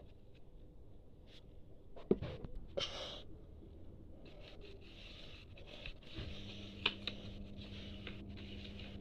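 Faint scraping and clicking handling noises, with a sharp knock about two seconds in and a brief rustle about a second later; a faint steady hum comes in about six seconds in.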